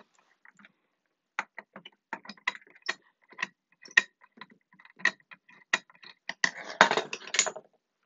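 A long screwdriver clicking and scraping metal on metal inside a Gamewell Sentry manual fire alarm pull station as its mechanism is reset. Scattered sharp clicks build to a longer rattling scrape near the end.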